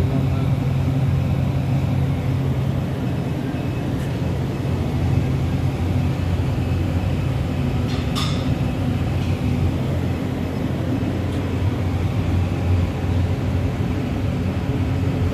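KBA Rapida 74 sheetfed offset press running, its inking rollers turning, giving a steady mechanical hum. A brief hiss comes about eight seconds in.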